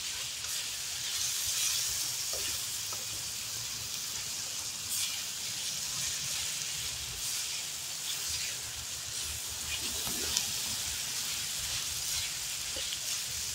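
Asparagus, snow peas and onion sizzling as they sauté in a wok, stirred with a spoon, with a few light clicks of the spoon against the pan.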